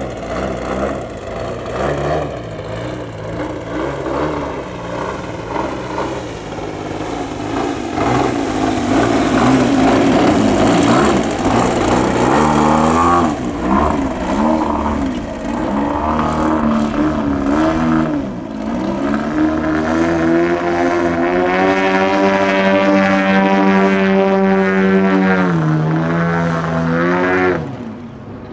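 AJ Laser 123 radio-controlled aerobatic plane's engine and propeller in flight, the pitch repeatedly rising and falling with throttle changes through the maneuvers. Near the end the throttle is chopped and the sound drops away.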